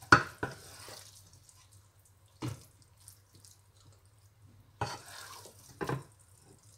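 Wooden spatula scooping cooked minced meat and cauliflower out of a non-stick pot and knocking it into a glass bowl: about five short scrapes and knocks, the loudest right at the start, over a faint low steady hum.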